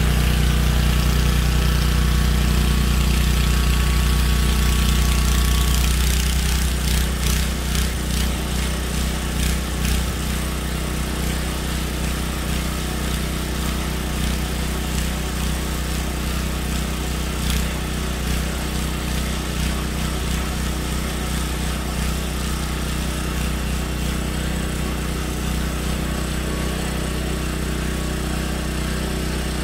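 Snow blower engine running steadily. It is loudest for about the first six seconds, then drops slightly and runs a little more unevenly.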